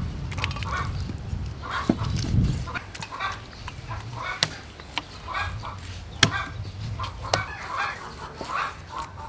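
Chickens clucking over and over, with a few sharp knocks of a knife blade striking a wooden chopping board.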